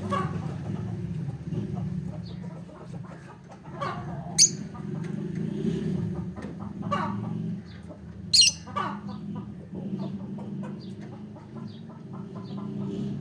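Olive peach-faced lovebird chirping in short repeated calls, with two loud, shrill calls about four and eight seconds in, over a steady low hum.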